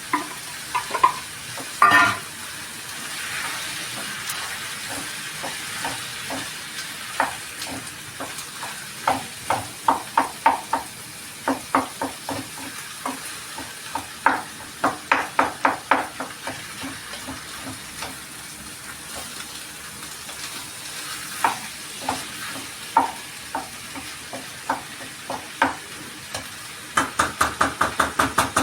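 Food sizzling and frying in a pan, with a spatula stirring and scraping it in short bursts of clicks. Near the end comes a quick run of taps, about three a second.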